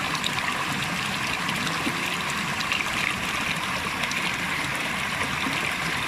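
Small mountain stream running over rocks and little cascades, a steady rush of water.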